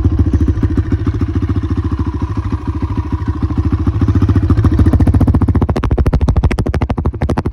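Kawasaki KLX140R trail bike's single-cylinder four-stroke engine idling just after start-up: a loud, rapid, even exhaust putter. The firing pulses turn sharper about five and a half seconds in.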